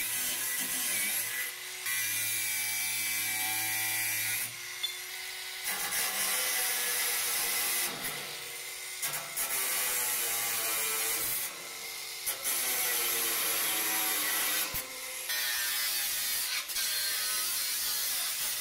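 POPOMAN 20V brushless cordless angle grinder, fitted with a metal cutting disc, cutting through metal rods and a metal bar: a steady high grinding noise of the disc on metal. It comes in several cuts, with brief dips about five, eight, twelve and fifteen seconds in.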